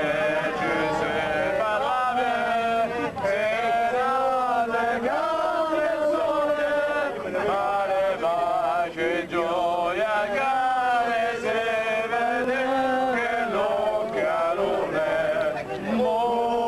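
A group of men singing a song together, holding long drawn-out notes.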